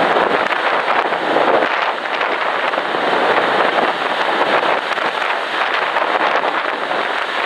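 Steady rushing noise of wind and sea on the open deck of a moving ferry, rising and falling slightly without any distinct events.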